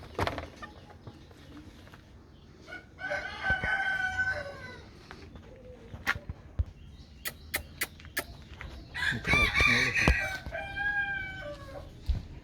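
A rooster crowing twice, each crow a long drawn-out call lasting about two seconds, with several sharp clicks in the gap between the crows.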